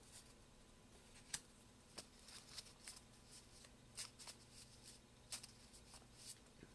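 A deck of oracle cards being shuffled by hand: faint, irregular flicks and snaps of the cards, the sharpest about a second and a half in.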